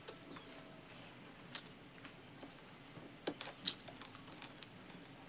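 Someone eating rice with pork: quiet chewing broken by a few sharp, wet mouth clicks, the loudest about a second and a half in and a pair a little past the middle.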